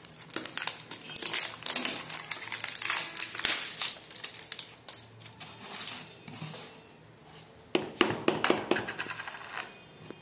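Plastic seal crackling and clicking as it is peeled off the lid of a whey protein tub, the tub being opened. The handling comes in bursts, thickest at the start and again about eight seconds in.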